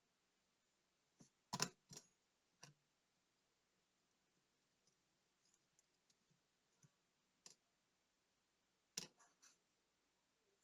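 Small, sharp clicks and taps from handling a digital wristwatch's small parts with hand tools: a quick cluster about a second in, faint scattered ticks, and another cluster near the end.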